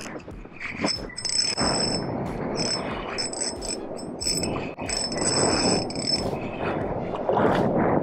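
Spinning reel giving a high-pitched buzz in several short stretches that stop and start, as a hooked fish is fought on a hard-bent rod, over a steady rushing noise.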